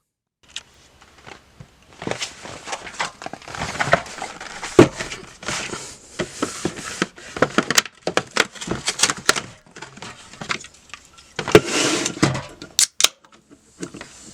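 Irregular rustling and crinkling of things being handled up close, broken by many sharp clicks and knocks; the sharpest knocks come about five seconds in and again near the end.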